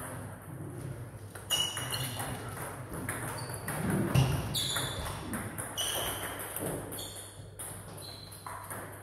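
Table tennis rally: the ball clicking off paddles and the table, about eight sharp hits, each with a brief high ring. A brief low sound about four seconds in is the loudest moment.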